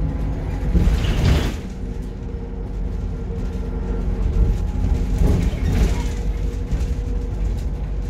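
Stagecoach London bus heard from inside the passenger saloon while under way: the engine and drivetrain run with a steady low rumble and a thin, steady whine. The noise swells louder about a second in and again a little past halfway.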